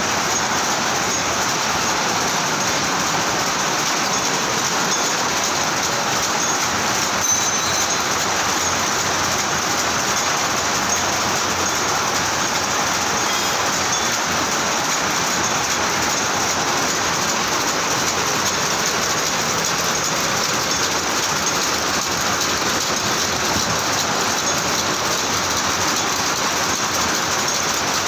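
Power loom with an electronic Jacquard head weaving: a loud, steady, rapid mechanical clatter with no pauses.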